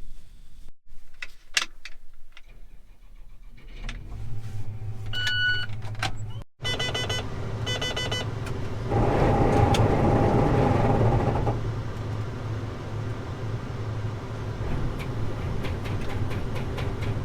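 John Deere combine engine starting and running after a feeder house chain repair, with short electronic beeps from the cab monitor a few seconds in. About nine seconds in it gets louder for a couple of seconds with a steady whine, then settles back to a steady run.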